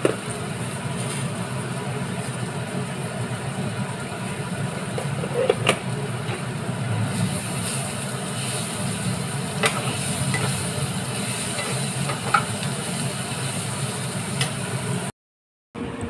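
Diced pumpkin frying in oil in a non-stick pan on a gas stove, stirred with a metal spatula that scrapes and taps against the pan several times, over a steady low hum and hiss.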